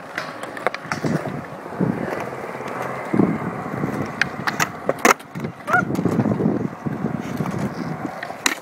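Skateboard wheels rolling over smooth concrete, with several sharp clacks of the board on the ground from tail pops and landings, one of the loudest about five seconds in.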